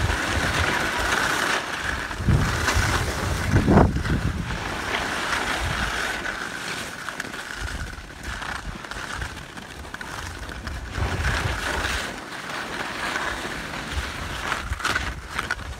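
Wind buffeting the phone's microphone over the hiss and scrape of sliding downhill on snow, with a louder scrape about four seconds in.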